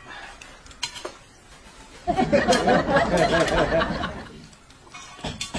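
A burst of laughter lasting about two seconds, beginning a couple of seconds in.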